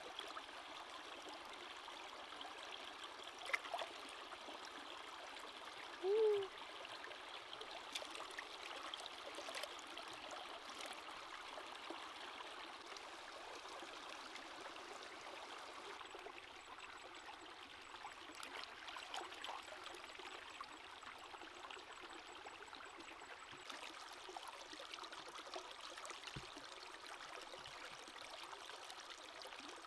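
Steady rush of a fast-flowing stream, with the splashing of hands rinsing food in it. A sharp click about three and a half seconds in and a brief squeaky note about six seconds in stand out above the water.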